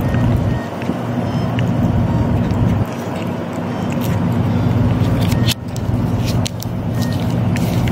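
A cat licking and smacking at a squeeze-tube lick treat, with small wet clicks from its tongue and mouth, several close together near the end. Under it runs a loud, steady low rumble.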